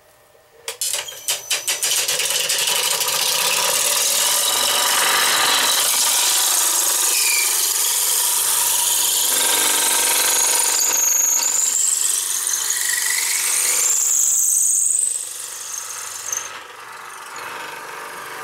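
Veritas 3/8-inch dowel maker cutting a square sumac blank spinning in a Powermatic wood lathe. A few sharp clacks as the cut starts, then loud steady shaving with brief high squeals. It drops to a quieter cut about fifteen seconds in.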